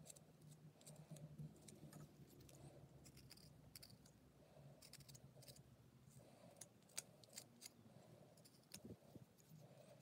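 Faint, irregular snicks and scrapes of a whittling knife paring small cuts from a wooden seagull carving, held in the hand.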